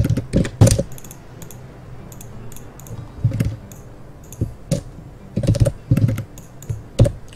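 Computer keyboard typing: irregular keystrokes, some in quick clusters.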